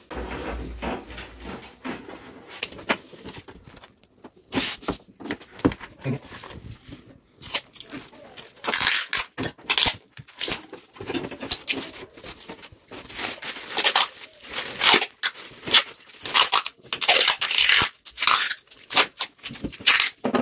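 Black insulation tape being pulled off its roll and wound around a split AC's bundled copper pipes, cable and drain hose. Quieter rustling and handling come first, then repeated sharp tearing strips from about a third of the way in.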